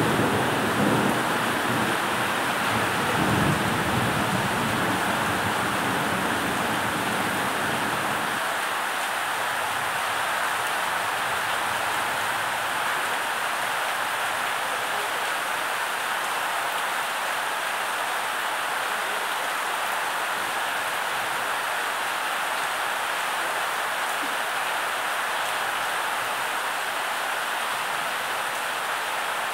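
Heavy thunderstorm rain falling hard and steadily on the roof, with water pouring over an overflowing gutter. A low rumble of thunder dies away over the first eight seconds or so.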